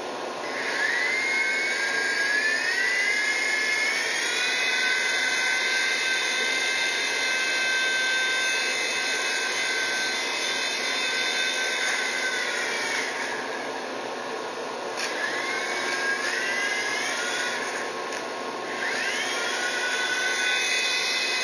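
WL v911 micro RC helicopter's electric motor and rotors whining as the throttle is pushed up, the pitch rising in steps and holding for about nine seconds before falling away. Two shorter spool-ups follow, about 15 and 19 seconds in. It is carrying a 10-gram payload and struggles with it.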